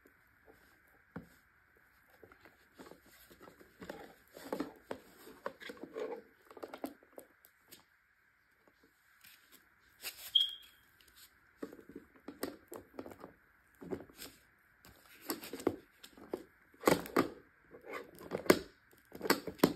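Handling noises as the parts of a tumbler spinner are fitted and pushed together on a cloth-covered surface: rustling of the cloth, scrapes and small knocks in irregular bursts, with a brief pause about eight seconds in.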